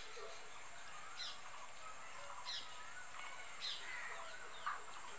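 Birds chirping in the background: short falling chirps about a second apart over faint warbling notes, with a steady high hiss underneath.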